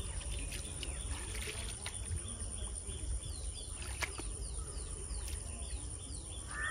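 Crickets trilling steadily at a high pitch, with a bird repeating short falling chirps about twice a second from around halfway through. A single sharp click comes about four seconds in.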